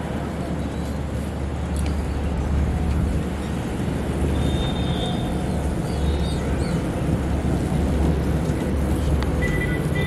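A steady, low engine rumble from motor traffic on the road beside the pond, a little louder after the first couple of seconds.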